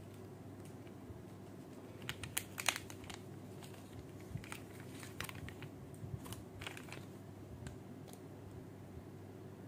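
Hands handling a plastic toy bubble gun and its packaging: scattered light clicks and taps, bunched about two seconds in and again around five to seven seconds, over a low steady hum.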